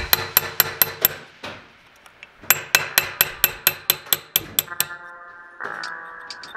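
Steel hammer tapping a pin punch, metal on metal with a sharp ring, in quick regular strikes about five a second: two runs with a pause between. It is driving a pin down out of the shift rail of a manual gearbox's shifter housing.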